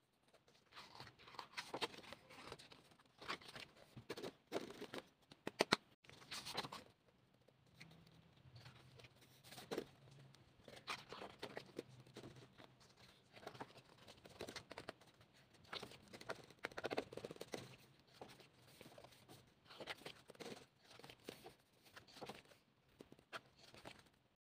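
Pages of a K-pop album photobook being turned and handled by hand: quiet, irregular paper rustling with short, sharper flicks as each page is flipped.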